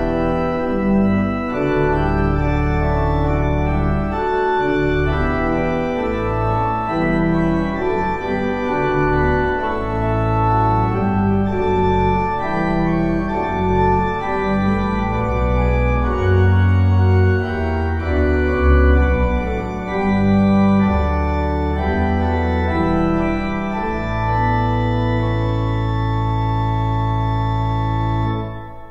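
Church organ playing a hymn tune in full chords over a deep bass line, closing on a long final chord that cuts off just before the end.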